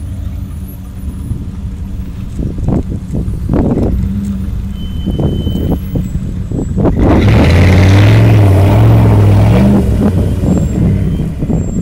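Off-road SUV engine pulling away and building up, loudest with the revs raised about seven to ten seconds in as the vehicle drives through a shallow muddy stream, with water splashing from the tyres near the end.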